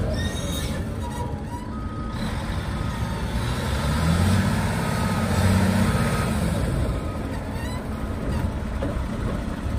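Volvo A40E articulated dump truck's six-cylinder diesel engine running as the truck drives, pulling harder and rising in pitch about four seconds in, then easing back.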